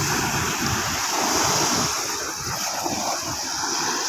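Surf washing on the shore, with wind buffeting the microphone in an uneven low rumble.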